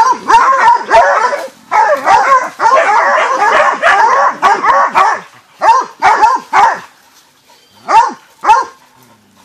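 Dogs barking hard and fast at a jaguar they are holding at bay. The barking is dense and overlapping for about five seconds, breaks into short bursts, and ends with two last barks near the end.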